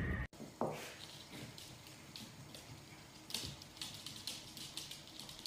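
Irregular light clicks and ticks of small dogs' claws and feet on a hardwood floor as they move about, with one short sharp sound about half a second in.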